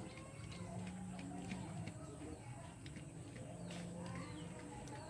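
Civet chewing a small rodent: faint scattered clicks and crunches over a low steady hum.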